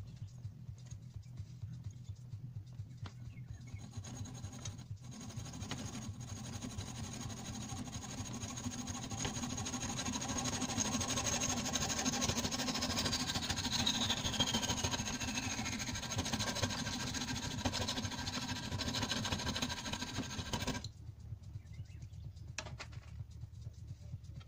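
Small hacksaw sawing through a brass rifle cartridge case clamped in a bench vise: a steady rasping cut that starts about four seconds in, grows louder, and stops abruptly near the end.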